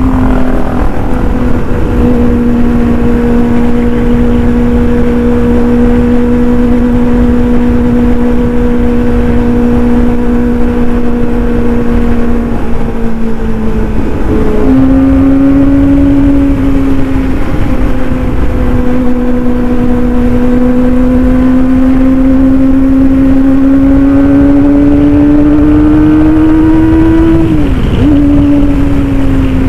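Kawasaki ZX-25R's 250 cc inline-four through an aftermarket racing exhaust, held at steady high cruising revs with wind rushing. About halfway through the revs jump to a new steady pitch. They then climb slowly and drop sharply with a gear change near the end.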